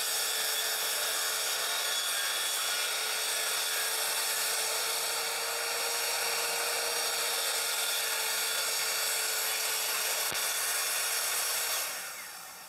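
Corded Kobalt circular saw running through a long, steady rip cut along a track guide, slicing off the overhanging ends of wooden planks. The sound dies away near the end as the cut finishes.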